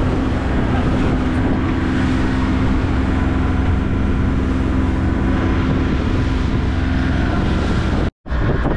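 Motorboat engine running steadily with a constant hum and a rushing noise over it. The sound cuts out for a moment near the end.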